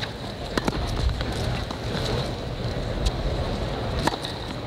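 Tennis rally on a hard court: sharp racket-on-ball hits, several in a row about a second apart, over the steady background noise of a stadium crowd.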